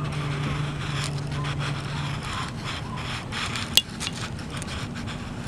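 Graphite pencil scratching on paper in many short strokes as a drawing is sketched, with one sharp click a little under four seconds in.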